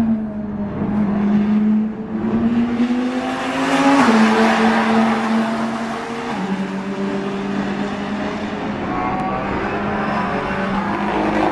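GT race car engine accelerating past along the straight. The engine note climbs, then drops with an upshift about four seconds in and another about six seconds in, and is loudest just after the first shift.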